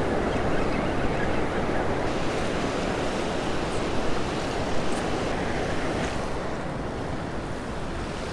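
Ocean surf washing onto the beach, a steady rushing noise, with wind on the microphone.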